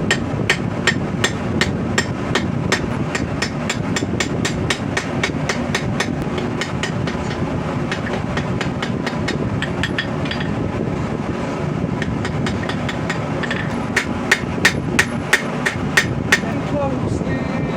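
Hand hammer striking hot rebar sword steel on an anvil in a steady rhythm of about three blows a second, drawing out the blade profile and bevels. The hammering pauses for a few seconds, then resumes with a louder run of blows.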